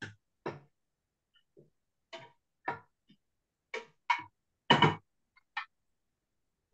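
A cooking utensil knocking and clattering against a frying pan as pieces of beef are turned while they brown: about eight short clatters with silence between them, the loudest a little under five seconds in.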